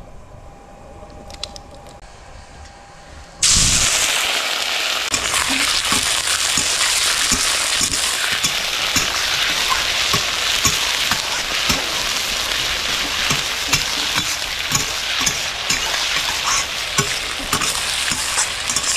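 About three seconds in, food is tipped into hot oil in a pan and starts sizzling loudly, and the sizzle keeps up while a spatula stirs the stir-fry with many short knocks against the pan.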